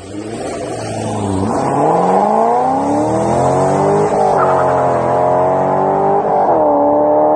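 C5 Corvette Z06's LS6 V8 with longtube headers, stock midpipe and stock titanium axle-back exhaust, accelerating hard away under full throttle. The pitch climbs and drops back with each of three upshifts.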